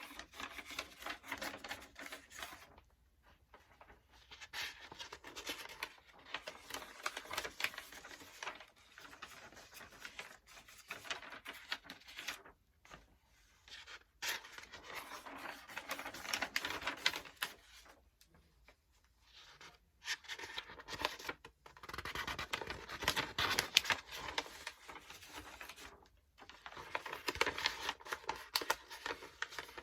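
Paper pages of a book being turned and flipped, a crackly rustling that comes in stretches of a few seconds with brief pauses between them.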